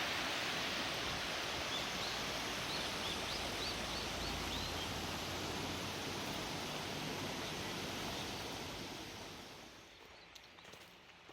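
Steady rush of flowing water, with a bird chirping faintly a few times about three to five seconds in. The rush fades away near the end.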